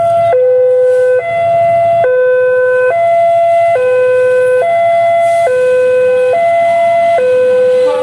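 Indonesian railway level-crossing warning siren, an electronic alarm recently replaced with a louder, slightly slower sound. It sounds loudly, alternating between a lower and a higher tone a little under once a second, warning that a train is approaching the crossing.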